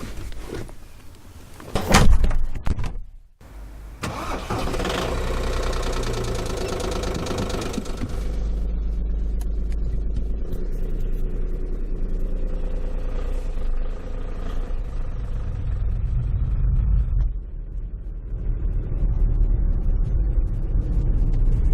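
A loud thump, then a car engine starts and keeps running steadily, its sound shifting a couple of times and growing louder near the end.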